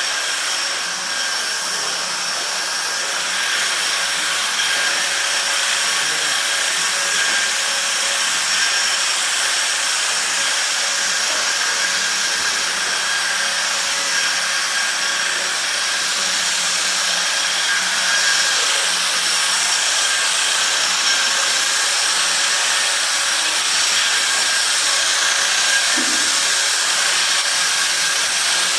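Electric sander running steadily on a wall: a continuous hiss with a high, steady whine on top.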